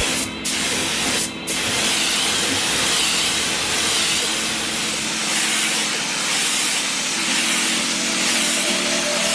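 Steady hiss of a compressed-air spray, cut off briefly twice early on and then held continuously.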